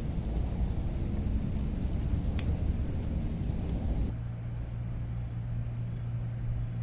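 Low, steady outdoor rumble with a single short click about two and a half seconds in. About four seconds in it cuts abruptly to a quieter, steady low hum.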